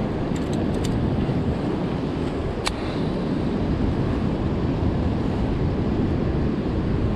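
Wind buffeting the microphone on an ocean pier, a steady low rumble, with a few faint ticks in the first second and one sharp click about two and a half seconds in.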